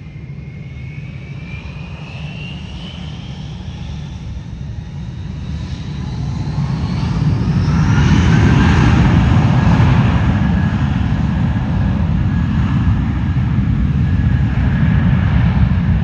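Airbus A320's IAE V2500 turbofan engines at takeoff power as the jet rolls down the runway. A whine rises in pitch over the first several seconds, then the sound peaks about halfway through into a steady heavy rumble.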